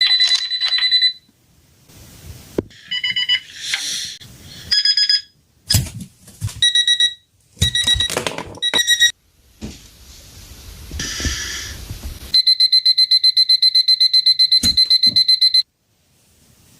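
A quick succession of different electronic alarm clock buzzers, each beeping for a second or so and then cutting off suddenly, as when power is removed, with clicks and hissy noise between them. Near the end one alarm gives a fast, even beeping for about three seconds before it too stops abruptly.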